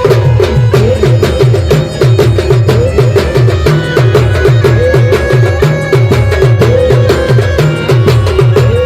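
Loud live band music in a traditional folk style: a fast, steady drum beat of repeated bass strokes that drop in pitch, under a lead melody that bends and slides over a steady held drone.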